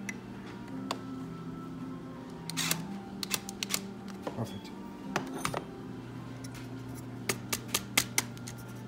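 Irregular sharp clicks and light metallic taps from hand tools and small screws being worked on a large-scale RC truck's metal skid plate, coming in small clusters, with a quick run of clicks near the end.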